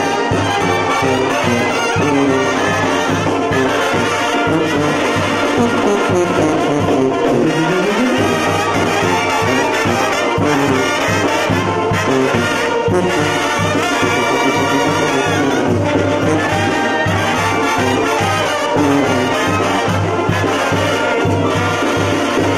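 Live Mexican banda music: trumpets and trombones play the melody over a steady, pulsing bass beat.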